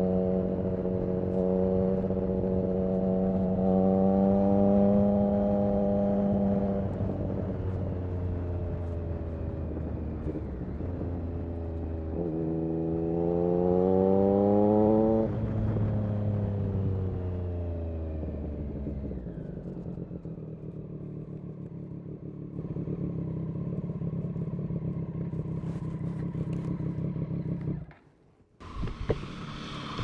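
Triumph Street Triple RS 765's three-cylinder engine through an SC Project S1 exhaust while riding. It pulls steadily, eases off, then revs up sharply for a few seconds around the middle before rolling off to low revs as the bike slows. Near the end the engine sound cuts out for a moment and a burst of noise follows.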